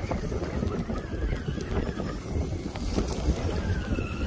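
Wind buffeting the microphone with a rough, fluctuating rumble. Near the end, the faint whine of an FTX Kanyon RC crawler's small electric motor comes through as the truck drives into a puddle.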